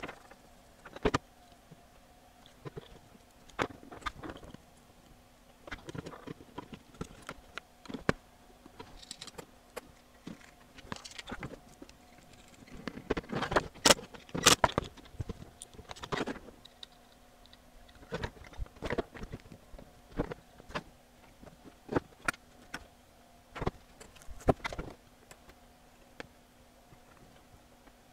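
Hand-assembly noises on a workbench: irregular clicks, knocks and metallic rattles as a screwdriver drives screws into a subwoofer amplifier's metal mounting plate and parts are handled, busiest a little under halfway through.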